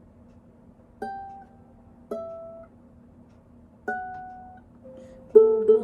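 Ukulele: three single notes plucked a second or two apart, each left to ring and fade, then a chord strummed twice near the end.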